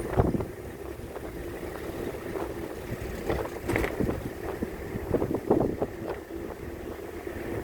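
Car driving on a road, heard from inside the cabin: steady engine and road rumble with a constant hum and wind on the microphone, broken by a few short thuds, the loudest right at the start and about five and a half seconds in.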